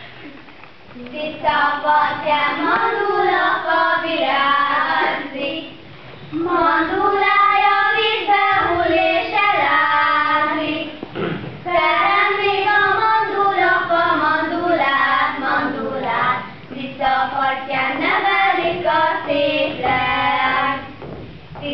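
Two young girls singing a song together, in four phrases with short pauses between.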